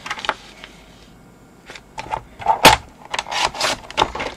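Sliding paper trimmer cutting a sheet of card: light taps as the sheet is set against the rail, a sharp knock a little over halfway through, then the scrape of the cutting head run along the rail.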